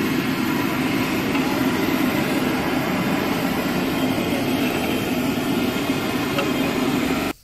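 LPG cooking burner roaring steadily under a large pot. The sound cuts off abruptly near the end.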